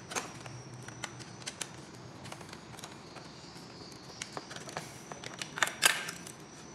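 Small clicks and scrapes of a screwdriver working the terminal screws of a wall plug socket, with the wires and plastic socket plate being handled. A louder quick run of clacks comes about six seconds in.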